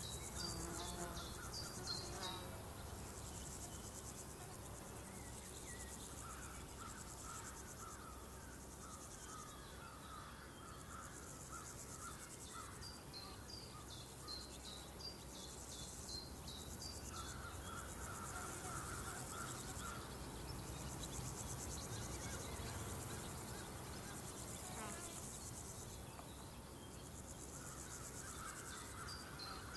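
Countryside insect ambience: crickets and other insects chirping steadily, with runs of short high chirps that come back about every dozen seconds and intermittent pulsing trills, over a low steady rumble.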